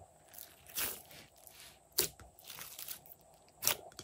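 Glossy slime being squeezed and kneaded by hands, with three short, sharp squelching pops about a second apart.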